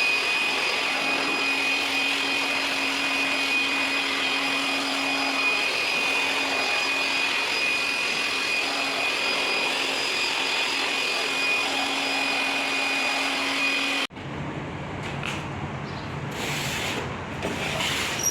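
Handheld electric air blower running steadily with a high whine, blowing dust out of a package air conditioner's control section. About 14 seconds in it cuts off abruptly, giving way to quieter hiss and a few knocks.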